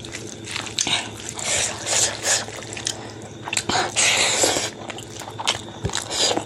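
Close-up eating by hand: fingers squishing rice in gravy and smacking, wet chewing with many small mouth clicks. A longer, louder wet hissing sound comes about four seconds in, as a handful of rice goes into the mouth.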